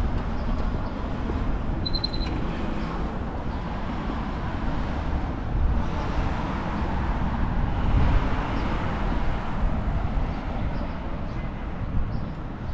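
City street ambience: steady traffic noise with a short high chirp about two seconds in.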